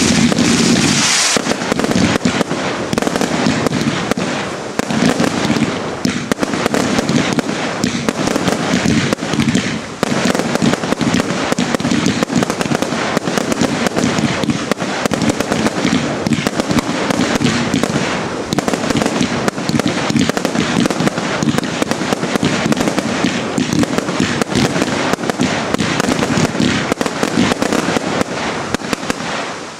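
Finale of a consumer New Year's fireworks display: a continuous barrage of launches and bursts, many bangs a second without a break, dying away right at the end.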